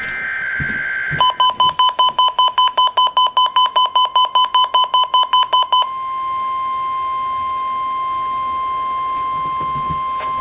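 NOAA Weather Radio weekly test alert: the tail of a screeching digital data burst, then rapid beeping at about six beeps a second for several seconds. About six seconds in, the beeping gives way to the steady single-pitch Warning Alarm Tone.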